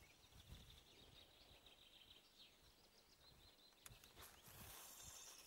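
Near silence with faint high chirping, then about four seconds in a brief hiss as a feeder rod is cast and line runs off the spinning reel.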